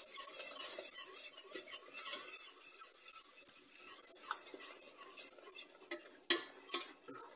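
A wire whisk beating milk into a thick butter-and-flour roux in a metal pot, its wires scraping and clicking against the sides and bottom. A sharp clink a little after six seconds in is the loudest moment.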